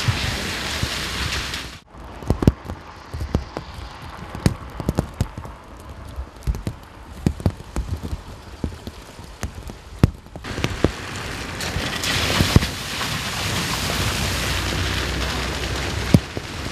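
Wet street sound in three cut-together pieces: a steady hiss of tyres on a wet, puddled road, then a stretch of scattered light ticks and taps, then the hiss again with the low rumble of a slow-moving car.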